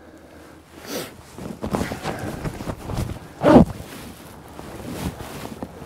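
A man's breathing and short non-word vocal sounds, the loudest a brief voiced sound about three and a half seconds in, with wind buffeting the microphone.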